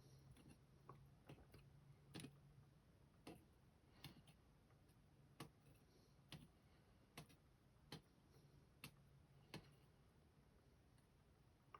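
Springs being taken out of a cylinder lock's pin chambers and set down: about a dozen faint, light clicks, roughly one a second.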